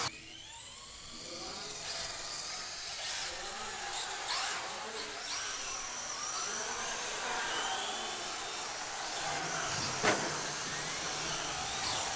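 Several radio-controlled cars' electric motors whining as they race, the high pitches repeatedly rising and falling with throttle. A couple of sharp knocks are heard, one near the middle and a louder one near the end.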